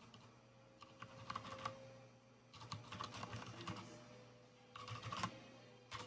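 Typing on an Anne Pro 2 mechanical keyboard with Cherry MX Brown switches: three short runs of keystrokes, about a second in, around three seconds in, and near the end.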